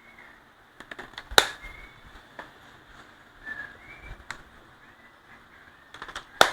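A few sharp knocks and clicks from hard objects being handled, the loudest about a second and a half in and another near the end, with faint bird chirps in the background.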